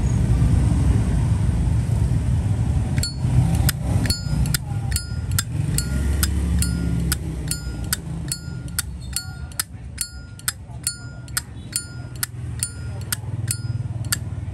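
Zippo lighter lid being flicked open and snapped shut over and over from about three seconds in: sharp metallic clicks about twice a second, many with a brief ringing ping as the lid opens. A steady low rumble of background traffic runs underneath.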